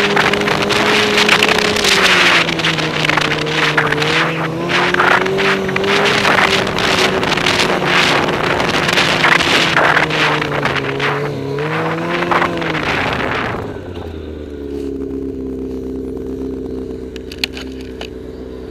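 Snowmobile engine and track running along a snowy trail, the engine note rising and falling with the throttle over a rush of track and snow noise. About three-quarters of the way through it slows and drops to a steady idle.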